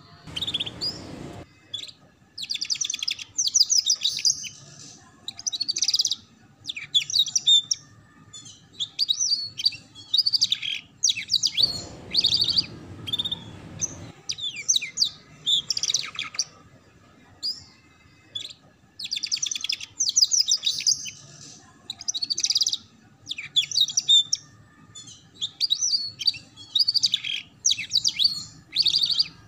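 Canary singing in repeated short bursts of fast, high twittering and trills, the rapid 'ngeriwik' chatter, with brief pauses between phrases.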